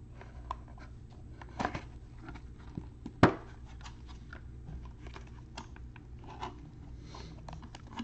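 A cardboard trading-card box being opened by gloved hands: scattered light clicks and rustles of cardboard and packaging, with one sharp snap about three seconds in, over a low steady hum.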